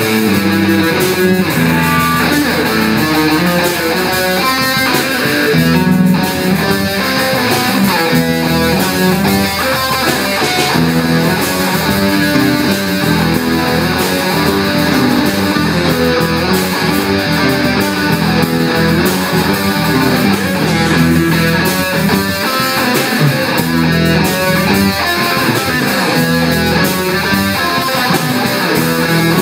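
Live rock band playing loudly: electric guitar with drums, a dense and steady wall of sound with no break.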